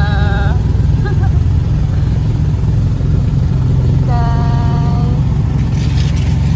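Engine and road rumble of a small passenger vehicle, heard from inside the cabin. A short high whine rises above it at the start and again about four seconds in.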